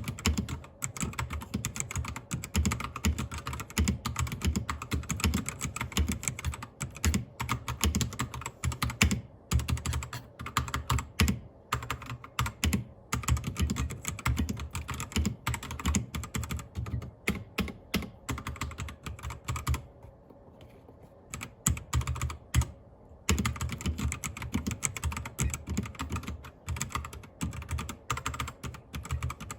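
Computer keyboard typing: a fast, uneven run of key clicks, broken by a pause of about three seconds a little past two-thirds of the way through.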